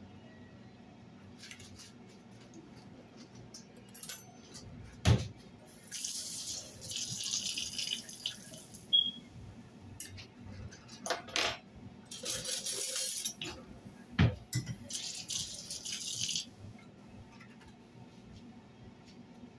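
Kitchen tap water running in three short spells, each starting and stopping abruptly, with two sharp knocks in between.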